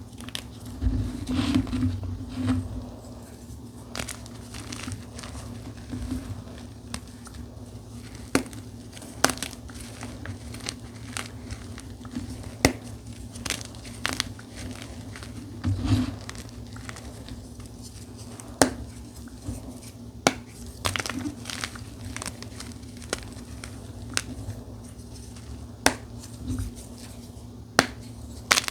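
Dyed gym chalk with a charcoal crunchie top being crushed. It crumbles with scattered sharp crackles and snaps, and there are heavier, duller crunches about a second in and again around the middle.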